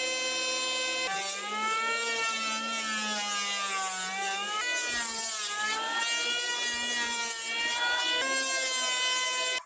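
Electric hand planer whining at full speed as it shaves a timber beam. Its pitch sags as the blades bite into the wood about a second in and again around five seconds, then picks back up to a steady running pitch near the end.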